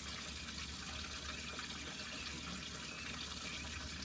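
Steady trickling water with a low, even hum underneath.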